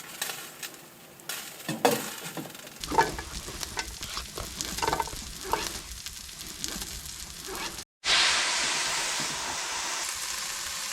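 A few light knocks and scrapes of food preparation, then a steak frying in a hot pan: a loud, steady sizzle that starts abruptly about eight seconds in.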